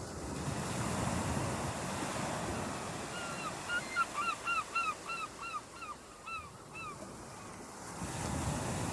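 Waves washing onto a beach, swelling at the start and again near the end. In the middle a bird calls in a quick run of short, down-slurred notes, about four a second, for several seconds.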